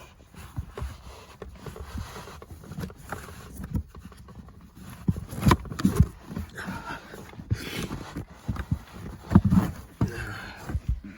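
Handling noises from a car's footwell carpet and trim being pulled back and moved: irregular knocks, bumps and rustling.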